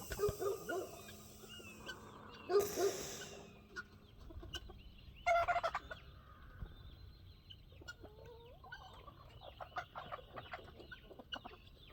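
Flock of guinea fowl and chickens calling and clucking while being herded into their coops at roosting time: scattered short chirps and squawks, with one louder squawk about five seconds in and a brief rush of noise a little before three seconds.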